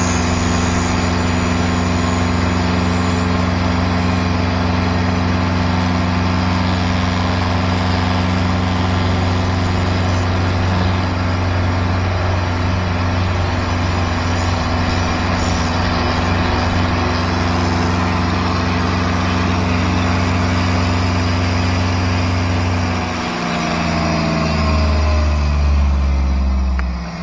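Emco Unimat SL lathe running steadily while turning a brass pulley, a constant motor hum. Over the last few seconds the hum drops in pitch in steps as the lathe slows.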